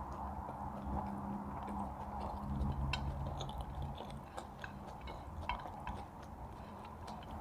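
Close-up eating sounds: chewing with scattered small clicks and smacks, over a low steady hum.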